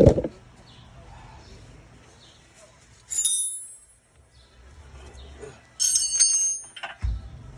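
Metal parts clinking together with a bell-like ring: one clink about three seconds in and a longer jangle of several strikes about six seconds in, followed by a short dull thump near the end.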